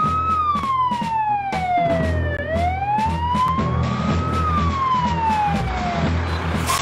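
Fire engine siren in a slow wail, its pitch rising for about two seconds and falling for about two, twice over, above the low steady running of the engine. The wail fades away near the end.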